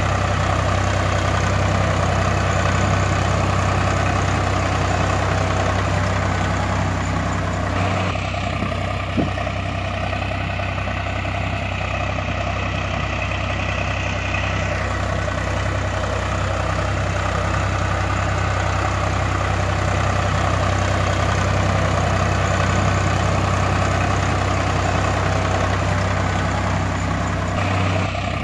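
Tractor engine idling with a steady low throb. The sound changes abruptly about eight seconds in and again just before the end, as at an edit in the track.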